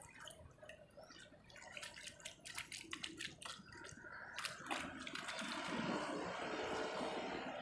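Small splashes and drips of pond water as a hand dips and scoops at the water's edge, a quick run of little clicks and trickles; about halfway through, a steady rushing noise takes over.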